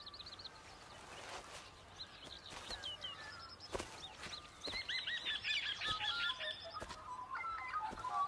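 Birds calling: runs of short, high, repeated chirps that are busiest in the middle, with a few faint knocks.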